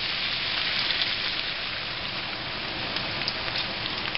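Squash, onion and carrot sizzling in a hot pan: a steady hiss with scattered small pops.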